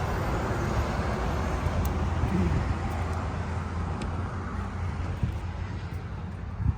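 Road traffic: a vehicle's steady low rumble and tyre noise that slowly fades away, with a single knock near the end.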